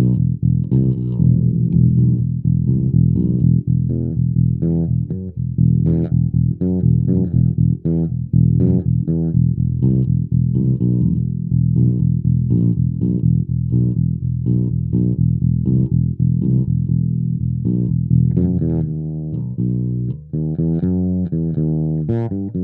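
Short-scale fretless electric bass played through a small VOX practice amp with tiny speakers, no effects: a continuous line of plucked notes, moving to higher notes in the last few seconds.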